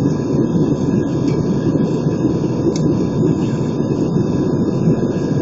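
Steady cabin noise of an Airbus A320 in flight, the engines and rushing air heard from inside the passenger cabin, with a faint steady tone over it.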